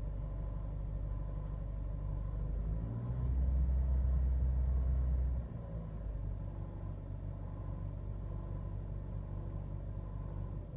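Škoda Fabia's 1.2 TSI (EA211, CJZC) turbocharged four-cylinder petrol engine running at idle. About three seconds in it is revved up and held for two or three seconds, then drops back to idle.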